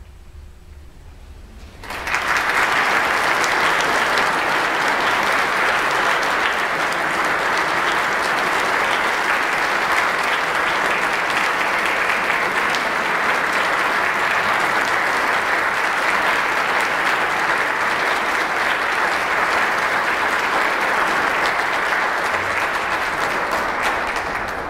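Audience applauding, breaking out suddenly about two seconds in after a brief hush and then holding steady.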